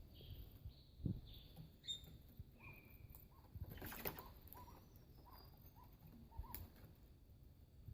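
Birds calling faintly: a run of short, soft chirps with a few higher notes, and an occasional soft scuffle or thud.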